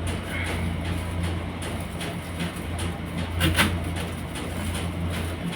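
A steady low hum, with a short cluster of sharp clicks of eating a little past halfway.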